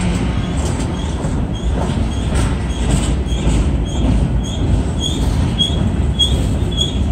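Long freight train of empty open-top hopper cars rolling past a grade crossing: a steady rumble of wheels on rail with scattered clicks. The crossing bell rings about twice a second throughout, louder in the second half.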